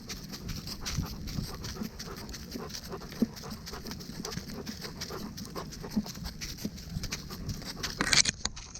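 Dog panting while trotting, heard close up from a camera worn by the dog, with irregular footfalls and small knocks. A louder rustling scrape comes about eight seconds in.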